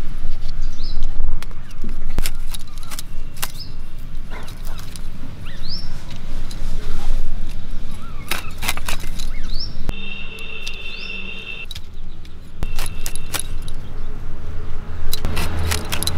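Crisp snaps and cracks as the stalks of a fresh head of broccoli are cut apart into florets against an upright blade, coming as irregular sharp clicks. Birds chirp in the background.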